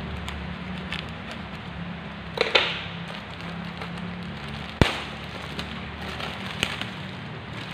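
Black plastic courier bag sealed with packing tape being cut and pulled open by hand, the plastic crinkling and rustling throughout. There is a louder crackle about two and a half seconds in and one sharp snap just before five seconds.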